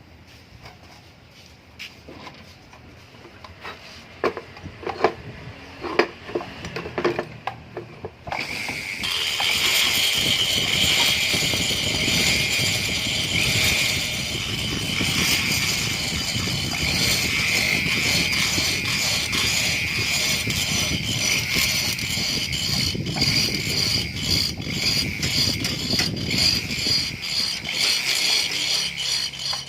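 Scattered clicks and knocks of parts being handled, then about eight seconds in a rotary grinder starts and runs with a steady high whine, grinding out the ports of a cylinder head.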